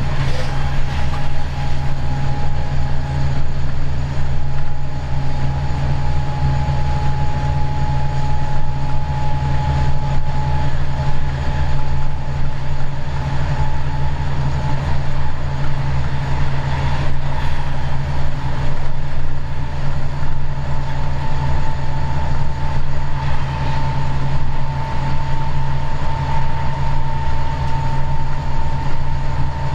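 Diesel locomotive running steadily under way, heard from the cab: a deep, even engine hum with rail noise, and a thin whine that rises slowly in pitch as the train gathers speed.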